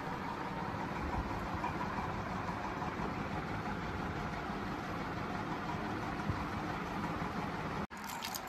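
A steady, even mechanical hum, like a motor running, that cuts out abruptly near the end. A few light clinks follow.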